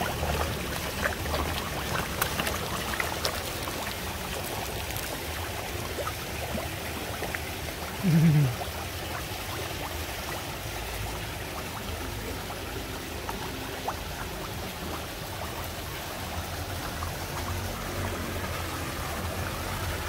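Koi pond water trickling and flowing steadily, with koi splashing and sucking at the surface as they crowd for food, the splashes thickest in the first few seconds. About eight seconds in, a short low voice-like sound falls in pitch.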